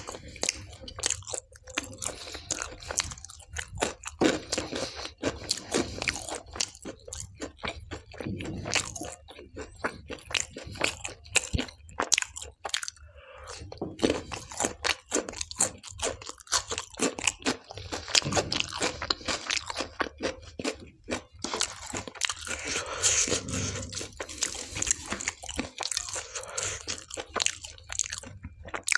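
Close-miked chewing of a mouthful of dal and tandoori naan: dense, irregular wet clicks, smacks and crunches.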